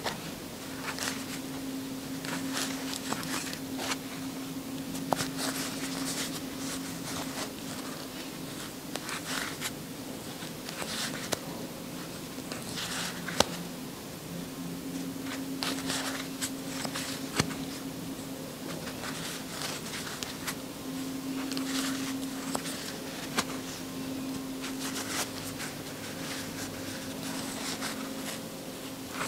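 Crochet hook working yarn through stitches: repeated short rustling scrapes of the yarn against the hook, picked up close by a clip-on microphone, over a steady low hum. A few sharp ticks stand out.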